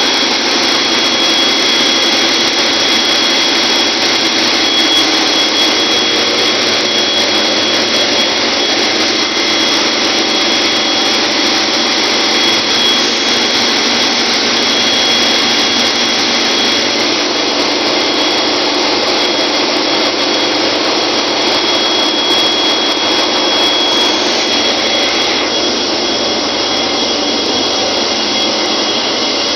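Ship's engine-room machinery running, a loud, steady din with a steady high-pitched whine over it. The noise shifts slightly near the end.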